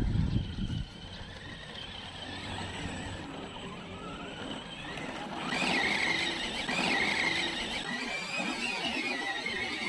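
Arrma Senton 4x4 RC truck's brushless electric motor whining as it drives across sand; the whine wavers in pitch with the throttle and grows louder about halfway through. A low rumble is heard in the first second.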